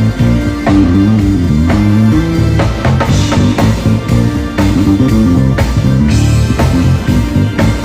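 Bass guitar playing a busy, moving line over a drum kit keeping a steady beat, at a band sound check.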